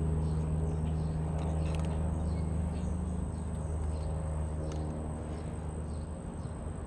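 A steady low hum that slowly fades, with faint light clicks scattered through it.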